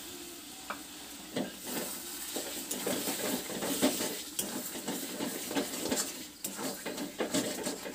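Spatula stirring thick, creamy chicken gravy in a metal kadai, with irregular scrapes and knocks against the pan that grow busier after about a second and a half. A steady sizzle from the cooking gravy runs underneath.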